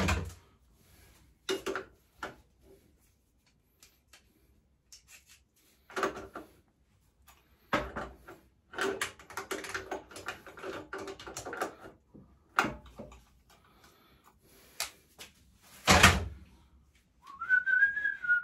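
Intermittent metal knocks and clatter of parts and tools being handled while a pit bike is put back together, loudest at the very start and about 16 seconds in, with a busier run of clattering in the middle. Near the end a man starts whistling a tune.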